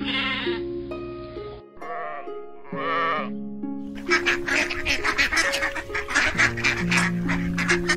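Sheep bleating three times in quavering calls, over background music; about halfway through, ducks take over with a rapid run of quacking.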